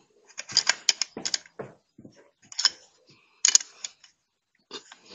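A steel wrench clinking and clicking against the bolts and chain of a homemade angle-grinder chainsaw as the chain bar is tightened, in about seven short bursts of metallic rattling.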